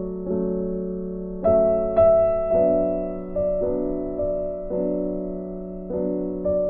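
Background music: soft piano or electric-piano chords, struck every second or so and left to ring.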